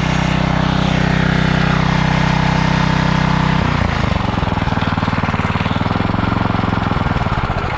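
Pressure washer running with a steady mechanical drone; its note shifts and becomes rougher about halfway through.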